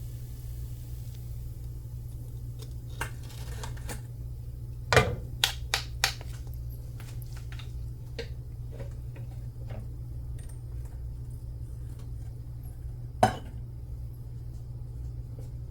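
Dishes and utensils clinking and knocking over a steady low hum: a quick run of sharp clacks about five seconds in, and one more loud clack near the end.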